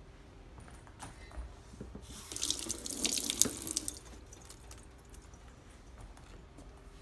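Kitchen tap running into a stainless steel sink: a rush of water starting about two seconds in and stopping about two seconds later.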